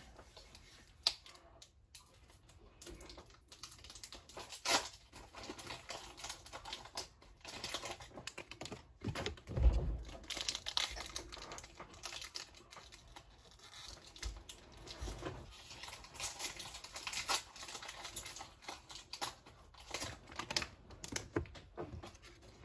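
Pokémon trading-card booster packs being torn open and their foil wrappers crinkled, with the cards handled and shuffled together: irregular light clicks and rustles, with a louder bump about ten seconds in.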